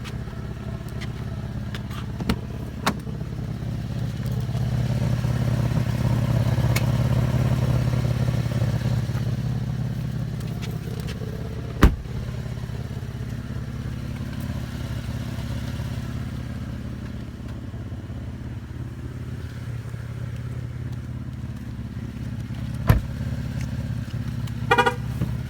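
A car running with a steady low hum that swells and then eases off, broken by a few sharp clicks or knocks: two loud ones about halfway through and near the end. A short warbling chirp comes just before the end. This is an odd noise from a Cadillac VSport that the owner wants identified.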